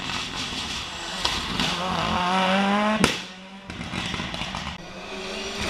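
Race car engine revving hard under acceleration, its pitch climbing, cut by a single sharp bang about three seconds in, after which the engine note drops and carries on quieter.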